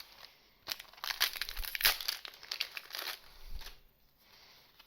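Foil wrapper of a Shadowverse Evolve booster pack being torn open and crinkled, a dense run of crackling lasting about three seconds before it dies away.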